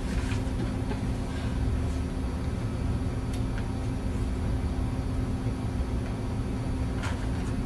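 Steady low rumble and a constant low hum of background room noise, with a faint hiss and a few faint ticks.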